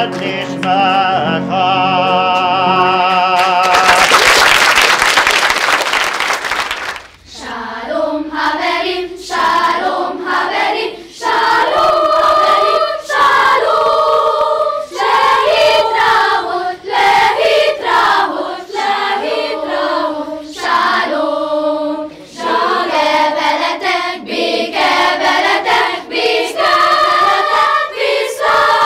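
A man's singing voice holds a final wavering vibrato note that ends about four seconds in. A few seconds of applause follow, then a children's choir starts singing in short phrases.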